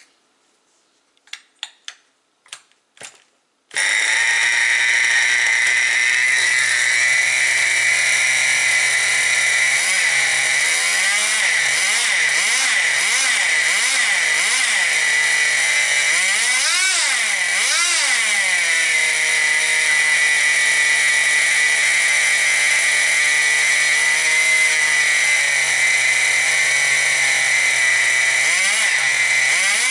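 Tamiya TGX radio-controlled car's small nitro glow engine catching suddenly about four seconds in after a few clicks, then running at a high, steady, whining pitch. It is blipped up and down in a quick run of short revs near the middle and a few more near the end, running freshly primed after a fuel-system overhaul.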